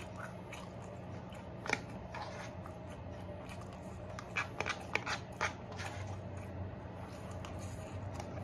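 Close-up eating sounds: a plastic fork clicking and scraping in a plastic takeout container while beef fried rice is chewed. A handful of short clicks, most between about four and five and a half seconds in, over a steady low hum.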